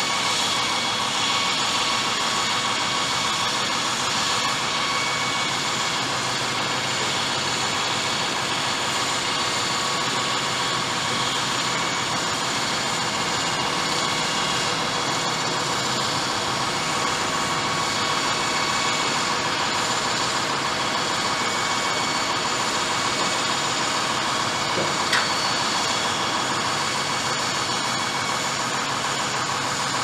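Concrete saw cutting through a reinforced concrete bell tower wall, a steady, unbroken whining drone with no change in pitch.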